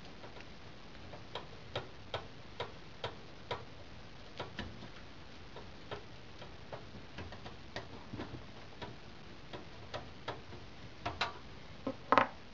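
Small, irregular clicks and ticks of hands working a part loose inside a computer case, a few a second, with a louder clack near the end.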